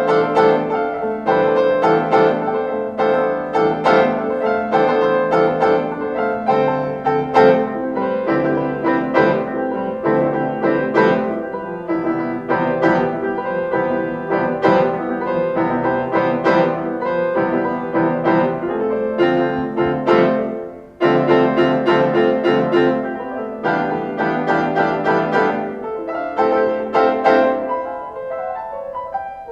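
Solo piano playing: struck notes and runs over held chords. The sound falls away briefly about two-thirds of the way through, then the playing carries on.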